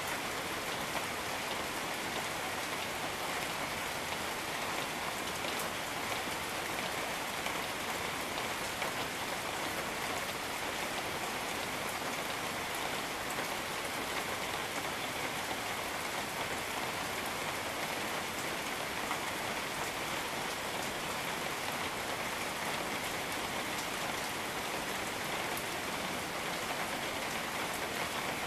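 Steady rain falling on jungle foliage and surfaces, an even hiss with scattered small drop ticks.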